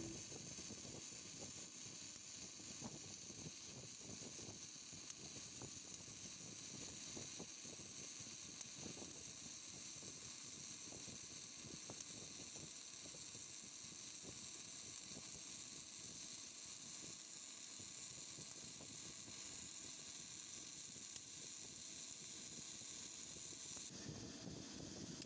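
Flux-cored arc welding: a faint, steady sizzling crackle from the welding arc.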